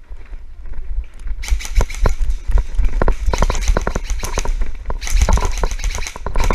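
Irregular sharp snaps and crackling with rustling, over a heavy low rumble of wind or handling noise on the body-worn microphone, as an airsoft player moves and engages in a game.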